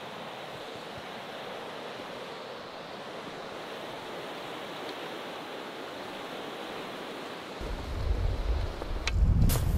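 A fast river rushing steadily over rapids. About eight seconds in, a loud low rumble on the microphone and a few sharp knocks come over it.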